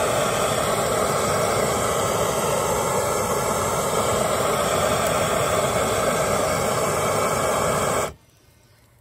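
Handheld gas torch burning with a steady, loud hiss as its flame is blasted into wood chunks to light a fire; it cuts off suddenly about eight seconds in.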